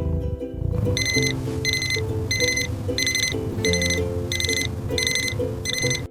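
Electronic alarm clock beeping in a steady repeated pattern, about two high beeps a second, starting about a second in, over light background music.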